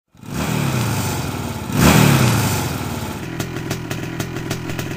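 A motor engine starts up suddenly and revs twice, the second rev the louder about two seconds in, each rev falling away again, then settles into a steady idle with an even, rapid firing beat. It serves as the sound of the reindeer being 'all revved up'.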